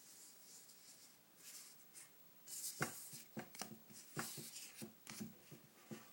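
Foil trading-card booster pack wrapper crinkling and crackling as it is handled and torn open, faint at first, then irregular sharp crackles from about three seconds in.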